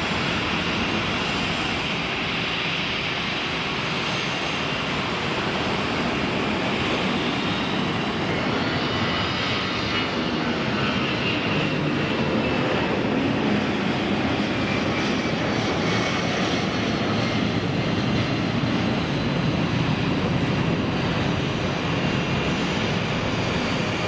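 Jet airliner engines with a steady rushing noise that grows a little louder about halfway through, with a faint high whine above it.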